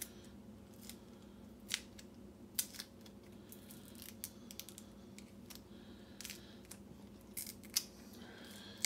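A few scattered small metallic clicks and taps from handling a Weiser-style lock cylinder and its key, over a steady low hum.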